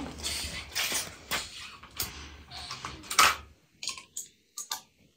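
Rustling and handling noise as a person gets up from a sofa with an electric iron and walks off, with a loud knock about three seconds in, then a few separate light clicks.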